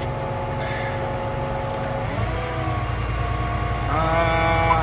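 Tractor engine, heard from inside the cab, running steadily and then revving up about two seconds in and again near the end. It is taking on load as the tractor tries to pull a disc harrow through deep mud.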